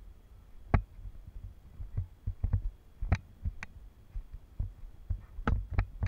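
Handling noise on an action camera: irregular knocks and bumps against its body, about one or two a second, over a low rumble.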